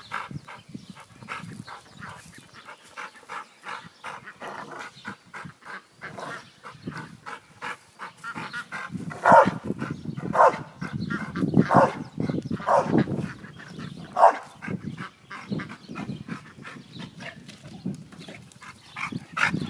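Pit bull barking, a run of about five loud barks in the middle, with one more near the end and scattered scuffing and rustling between them.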